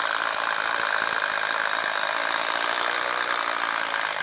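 Bosch Freak cordless impact driver hammering steadily as it bores a 3/4-inch auger bit into a wooden post, stopping near the end.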